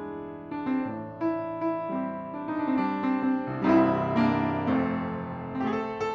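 A 1988 Yamaha P112 upright piano being played: a flowing passage of melody over chords, notes ringing on, with the loudest chord struck about two thirds of the way through.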